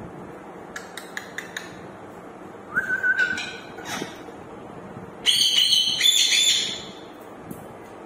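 Indian ringneck parakeets calling. A few short clicks come about a second in, then a brief steady whistle about three seconds in, and a loud harsh call lasting about a second and a half near the end.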